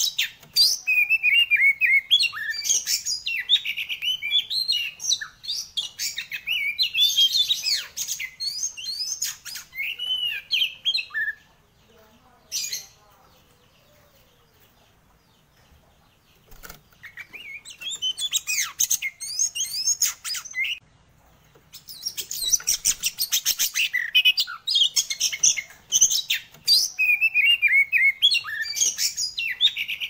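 Caged oriental magpie-robin (kacer) singing loudly in rapid, varied, high-pitched phrases. It stops for about five seconds in the middle, then starts again and grows denser near the end.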